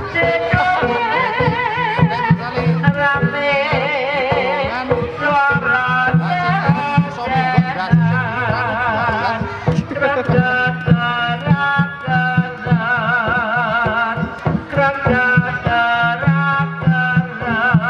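Live kuda kepang accompaniment music: a melody with strong vibrato carried over busy hand drumming and a steady low drone.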